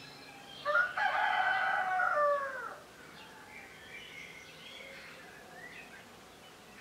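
A rooster crows once, about two seconds long, the call dropping in pitch as it ends. Faint chirping of small songbirds goes on around it.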